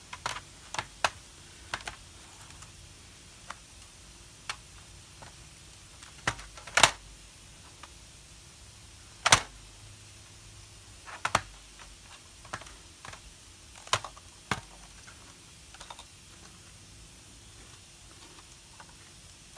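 Plastic clicks and snaps from a Dell Inspiron N5010 laptop's bottom case as a plastic pry tool works along its seam, a dozen or so at irregular intervals, the two loudest about seven and nine seconds in.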